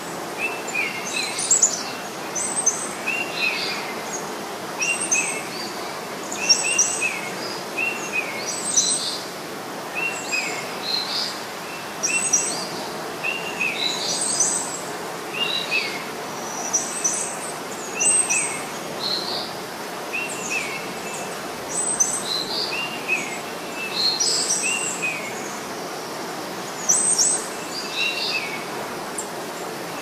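Small birds singing, short chirped phrases repeating every second or two over a steady soft hiss.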